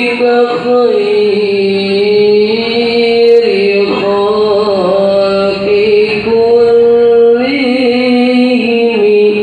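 A solo male voice chanting through a microphone in Islamic melismatic style: long, high, held notes with bending ornaments, sung in phrases.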